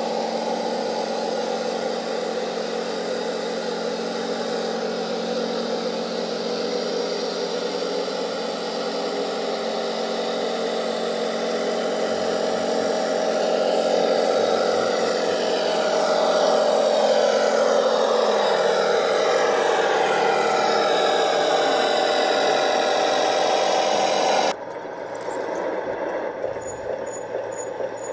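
Radio-controlled scale model vehicle running, a steady engine-like drone mixed with the whir of its electric drive, its pitch sweeping up and down as it drives. Near the end it cuts off sharply to a quieter running sound with faint regular ticks.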